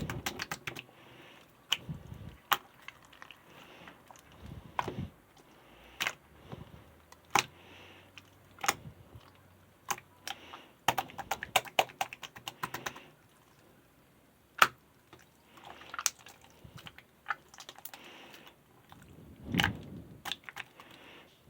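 Irregular sharp clicks and taps, some in quick runs, mixed with short bursts of rustling handling noise close to the microphone, with a louder rustle near the end.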